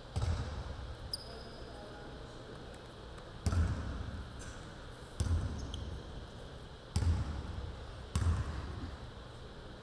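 Basketball bounced on a hardwood gym floor by a player at the free-throw line: five slow single bounces, one to two seconds apart, each echoing in the hall.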